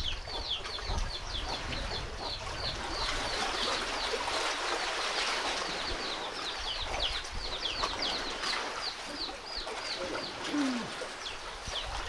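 Chicks peeping over and over, short high calls that slide down in pitch about three times a second, over a steady rush of wind and lake waves.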